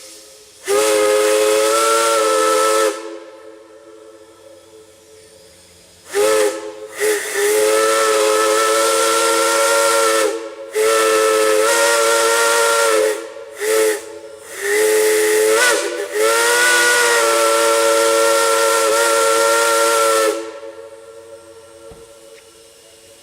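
A multi-note steam chime whistle sounding a chord, blown in a string of blasts: a short blast, then long blasts of several seconds broken by brief gaps and a couple of quick toots. Steam hisses between the blasts.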